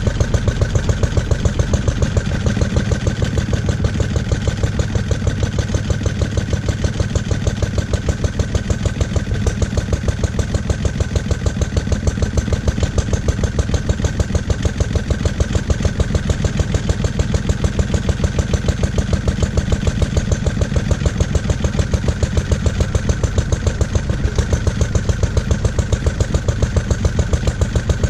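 Lister D single-cylinder petrol stationary engine running on its first start after more than twenty years, a steady rapid train of firing beats. The owner finds it quite jumpy and puts that down to ignition timing and carburettor settings that still need adjusting.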